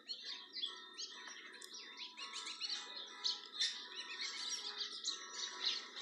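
A flock of small songbirds chirping and twittering, many short calls overlapping without a break.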